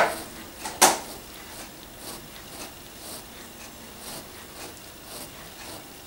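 A thump and then a sharp knock in the first second, followed by a cat licking sofa fabric: faint, short, rhythmic licks about two a second.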